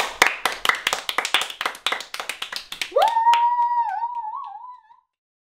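Several children clapping quickly for about three seconds at the end of their song, then one high voice giving a long, rising "woo" cheer that wavers and fades out about five seconds in.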